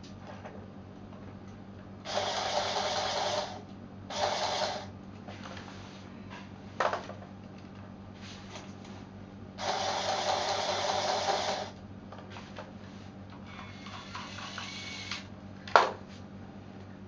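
LEGO Technic Power Functions motor mechanism whirring in four short bursts of one to two seconds each, with a sharp click near the end.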